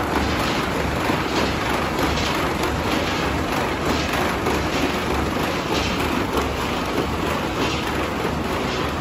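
A corrugated carton machine line running, its belts and rollers carrying die-cut cardboard sheets onto an oscillating paper-receiving platform: a steady, dense mechanical rush and rattle.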